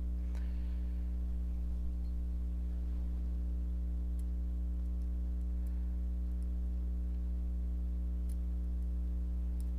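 Steady electrical mains hum with a few faint, sharp clicks of small metal parts being handled, as a screw is started into a folding knife's handle.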